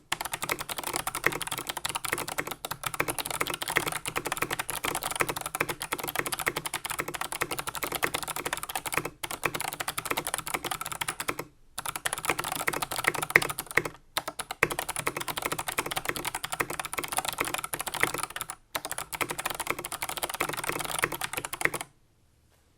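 Fast continuous typing on a keyboard with Kailh Box Jade clicky switches, each keystroke giving a sharp click from the switch's click bar, with a few short pauses and the typing stopping shortly before the end. The springs are lubed against ping and the hollow case is lined with foam.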